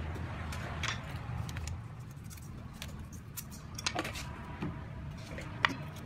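Scattered light clinks and taps of kitchen items over a low steady hum, the sharpest tap coming near the end.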